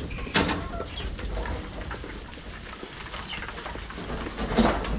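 Farm animals calling, with two louder calls about half a second in and near the end, over a steady low rumble.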